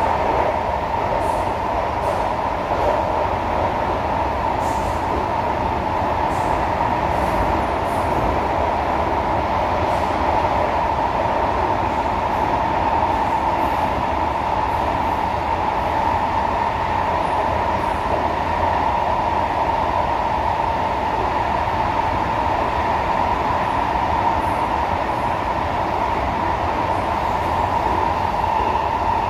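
SMRT C151A electric metro train running at speed, heard from inside the passenger car: steady rolling noise with a constant mid-pitched drone over a low rumble.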